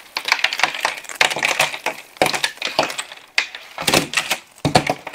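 A completed cardboard jigsaw puzzle shaken hard and coming apart: a dense crackle of pieces snapping loose and rustling, with a louder flurry of clatters near the end as pieces hit the table.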